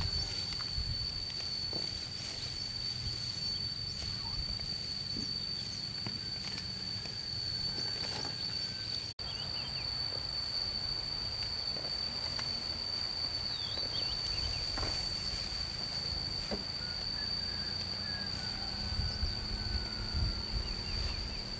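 Outdoor ambience dominated by one insect's unbroken, high, steady drone, over a low rumble of wind or handling noise with a few soft knocks and faint bird chirps.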